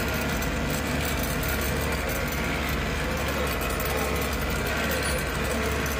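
Bus engine running steadily with a low drone, heard from inside the driver's cab while the bus is under way.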